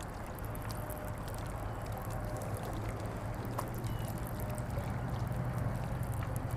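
Steady trickle and rush of running water, with a few faint ticks over it.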